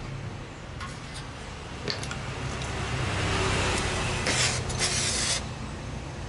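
Gas welding torch hissing as its gas is turned on and lit, louder for about a second near the five-second mark, then burning with a steady hiss. A couple of light knocks come before it.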